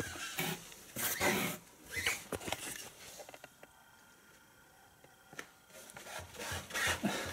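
A cat scratching and pawing at the thin nylon fabric of a pop-up kids' tent, making a few irregular rustling scrapes. They stop for about two seconds in the middle, then start again.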